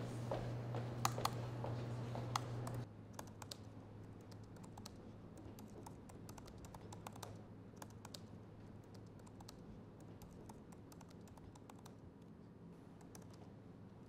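Typing on a laptop keyboard: scattered key clicks over a low steady hum, the hum dropping to a quieter level about three seconds in.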